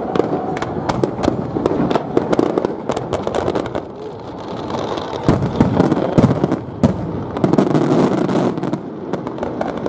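Aerial fireworks bursting, with a dense run of sharp pops throughout and a few heavier booms a little past halfway.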